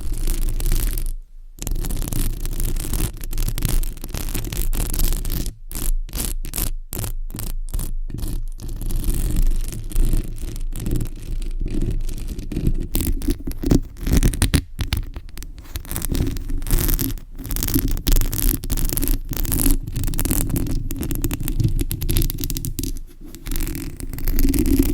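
Fingernails scratching and scraping a surface in repeated strokes, with a run of short, choppy strokes broken by brief gaps a few seconds in.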